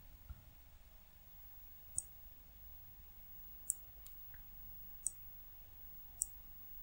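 Computer mouse button clicking four times: short, sharp single clicks spaced a second or so apart.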